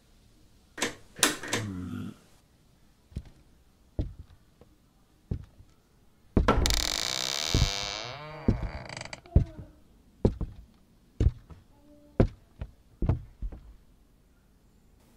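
Slow footsteps on a wooden floor: single dull knocks spaced about a second apart. About six and a half seconds in, a louder drawn-out sound falls in pitch for about a second and a half.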